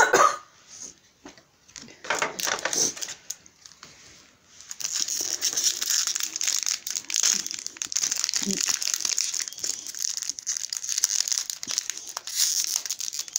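Foil trading-card booster pack crinkling steadily as it is handled and torn open, starting about five seconds in.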